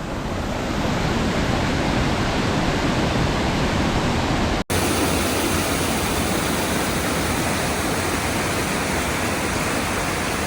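Waterfall rushing steadily in high flow, swollen after a week of rain. It cuts out for an instant about halfway through.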